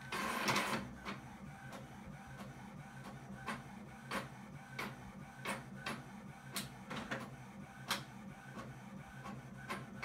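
A 3D printer printing: a steady motor hum with irregular light clicks throughout, and a brief rustle at the very start.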